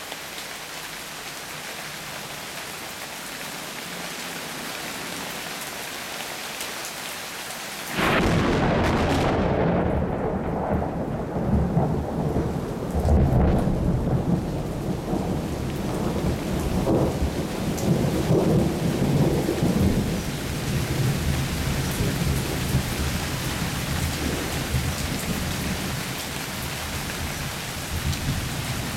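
Steady rain falling, then a sudden thunderclap about eight seconds in, followed by thunder rumbling that swells and pulses for about twelve seconds before easing back under the rain.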